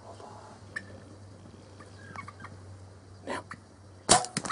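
Wild turkey longbeards fighting, giving short soft calls. Near the end a sudden loud sharp snap as a compound bow is shot at one of them, followed by a few quick sharp knocks.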